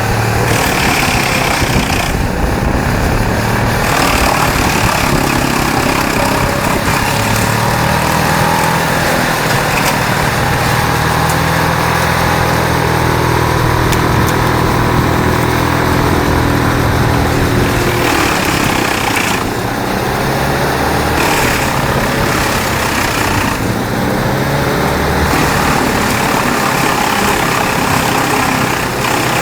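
Large wood chipper running: a heavy engine drone under a steady grinding noise, the engine note shifting about halfway through.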